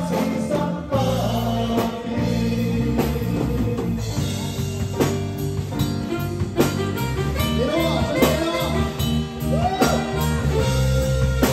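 Amplified pop song played live, with drums prominent and regular drum hits. Several singers on microphones sing sliding vocal lines over it.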